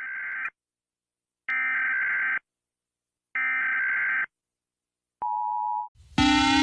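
Electronic emergency alert tone: three beeps of about a second each with a second of silence between them, then one shorter, lower beep. Near the end a louder siren starts, slowly rising in pitch.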